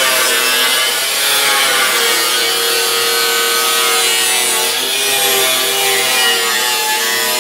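Abrasive cutoff wheel on a grinder cutting through the rusty sheet steel of a 1950 Ford's lower rear body panel. A steady loud grinding with a motor whine that wavers in pitch as the wheel bites into the metal.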